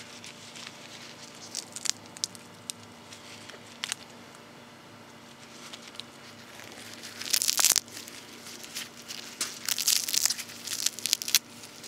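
Fresh sassafras leaves being crushed and torn by hand, a rustling crinkle in a burst about seven seconds in and again in bursts from about nine and a half seconds until near the end. A few faint clicks come earlier.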